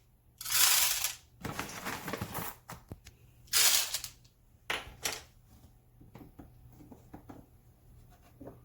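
Whole coffee beans being poured into the coffee maker's grinder hopper, rattling in four short bursts, followed by a few faint small clicks.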